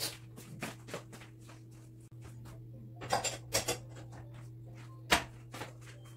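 Scattered knocks and clicks of items being handled in a kitchen, the sharpest about five seconds in, over a steady low hum.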